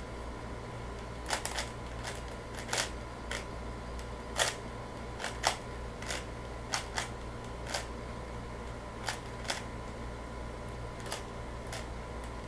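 3x3 speedcube being turned by hand: irregular sharp plastic clicks as its layers are twisted and snap into place, sometimes in quick pairs, at the unhurried pace of scrambling between timed solves. A steady low hum and a faint high tone run underneath.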